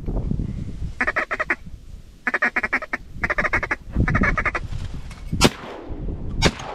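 Ducks quacking in four quick runs of rapid, evenly spaced quacks, then two shotgun shots about a second apart near the end, the first the louder.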